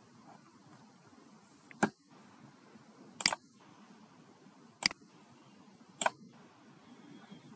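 Computer mouse button clicks: four sharp, separate clicks spaced one to one and a half seconds apart over a faint steady hiss.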